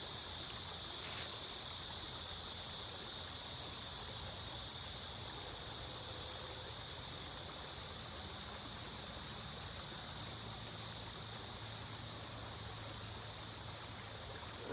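Steady high-pitched drone of a summer insect chorus, unchanging throughout.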